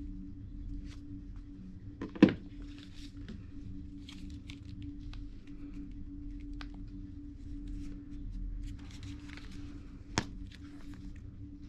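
Smartphones being handled in the hands: light rubbing and tapping, with a sharp click about two seconds in and another near the end, over a steady low hum.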